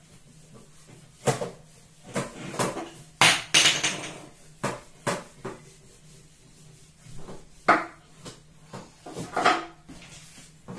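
A whiteboard being wiped clean with a duster: about ten irregular scrubbing strokes and sharp knocks, loudest a few seconds in.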